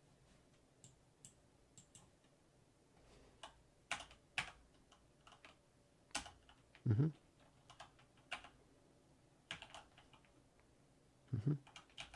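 Keystrokes on a backlit mechanical computer keyboard, typed in short irregular runs with pauses between them, while an ID is keyed in. Two heavier, deeper key thuds come about seven and eleven and a half seconds in.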